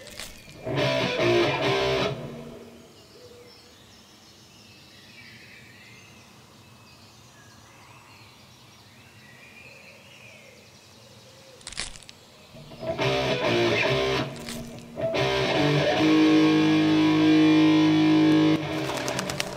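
Rock music driven by electric guitar, played in short stop-start hits. It breaks off for about ten seconds of faint outdoor ambience with light chirps and a single sharp click, then comes back in about 13 seconds in and grows louder.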